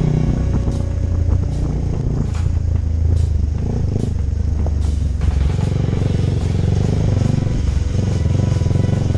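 Motorcycle engine running under way, its note changing about five seconds in, with scattered knocks and rattles.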